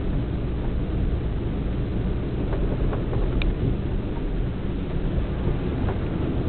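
Steady low rumble of wind and road noise from a moving vehicle in city traffic, with scooters and a bus close ahead. A brief faint high-pitched sound comes about three and a half seconds in.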